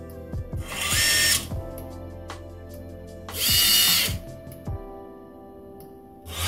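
Racerstar BR2207S brushless motors on an FPV quadcopter, propellers off, spun up one at a time to test the motor order: three short high-pitched whines of under a second each, about a second in, about three and a half seconds in, and near the end. Background music plays underneath.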